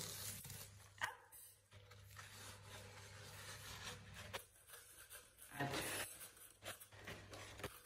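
Clear plastic packaging rustling and crinkling as a rolled diamond-painting canvas is slid out of its plastic sleeve and handled, with a sharp click about a second in.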